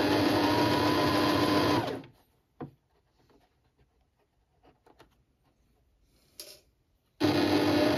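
Electric household sewing machine stitching at a steady speed, with a steady hum. It stops about two seconds in, then starts again near the end. A few faint clicks come in the pause between runs.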